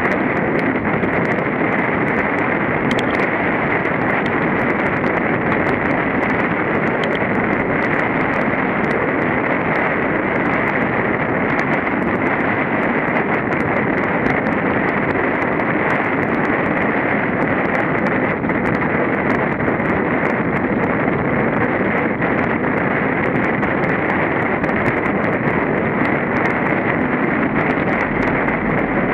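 Mountain bike rolling along a paved road, heard through a handlebar-mounted camera: a steady rush of wind on the microphone and knobby-tyre noise, with many small sharp clicks and rattles.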